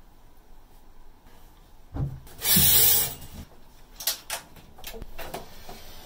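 Handling noises as a large saxophone is picked up and strapped on. There is a thump about two seconds in, then a loud hissing rush lasting about half a second, then a run of light clicks and clacks from the keys and strap hook.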